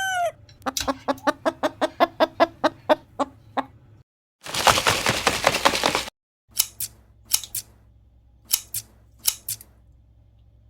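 A chicken clucking rapidly, about five clucks a second, at the tail of a rooster's crow, as a comic sound effect. Then a loud hiss lasting nearly two seconds, followed by several short, sharp sounds, mostly in pairs.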